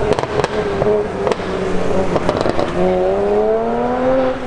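Tuned BMW 1M Coupé's twin-turbo inline-six with anti-lag, its exhaust popping and crackling in sharp cracks for the first couple of seconds, then the engine note rising steadily as the revs climb.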